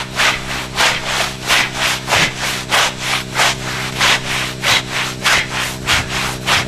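Rhythmic rubbing noise, about three strokes a second, over a steady low drone.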